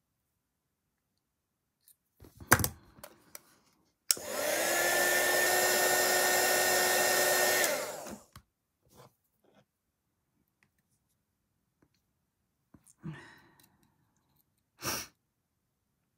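A small craft heat gun switched on for about three and a half seconds to heat the soft metal cradle part. Its fan spins up with a rising whine over a steady rush of air, then winds down as it is switched off. About two and a half seconds in, before it starts, comes a sharp knock, and a few light taps follow later.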